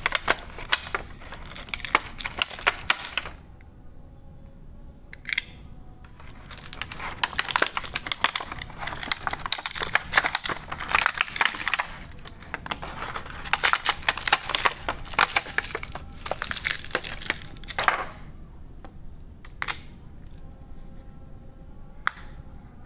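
Hard white plastic being handled close up: the Maxon G-200 earbud charging case is worked in and out of its moulded plastic packaging tray, giving dense crackling and clicking in two long spells, then a few separate clicks.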